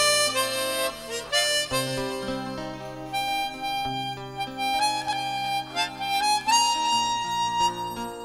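Harmonica (mouth organ) played solo through a stage microphone: a melody of held notes that step from pitch to pitch, climbing higher near the end.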